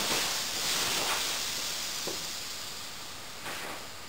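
Air hissing out of the open valve of an inflatable sleeping mat as the mat is rolled up and pressed down to empty it. The steady hiss slowly fades.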